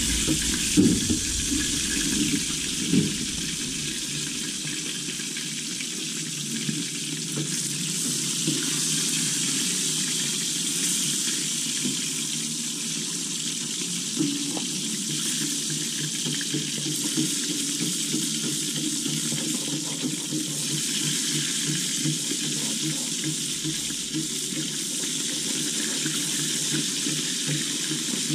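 Milkfish frying in oil in a wok, a steady sizzle with dense crackling. A few sharp knocks in the first three seconds, the metal spatula against the pan.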